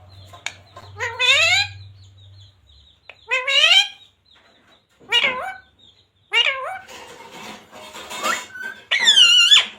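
Rose-ringed parakeet vocalizing in short, high-pitched calls, about six of them with sliding pitch, the loudest and longest near the end.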